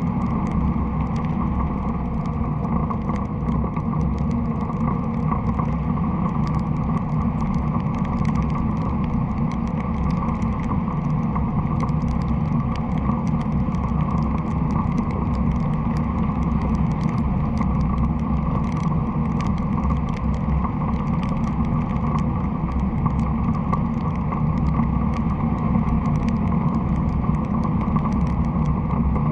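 Steady rush of airflow over the wing-mounted camera of a hang glider in flight at about 25 mph, with faint scattered ticks throughout.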